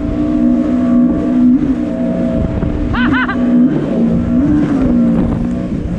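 Jet ski engine running at speed, heard from on board, its pitch steady with a few brief dips and rises as the throttle changes, over rushing water and wind. A short whoop of a voice cuts in about three seconds in.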